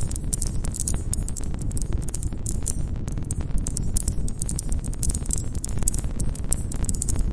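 Campfire of burning wood crackling, with dense, irregular snaps and pops over a low, steady rumble of the flames.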